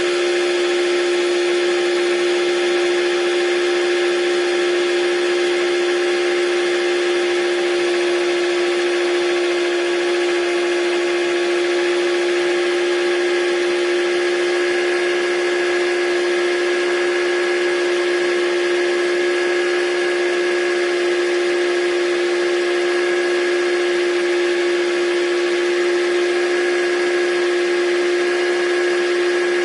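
Window air conditioner running with a loud, steady drone: a strong hum with several fixed higher tones and a hiss over it, like an aircraft engine.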